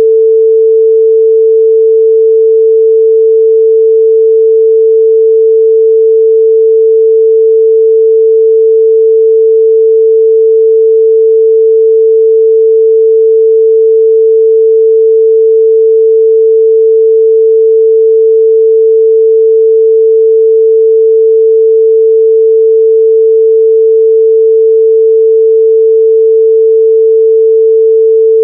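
A steady, loud 445 Hz sine-wave test tone, one pure pitch held without change.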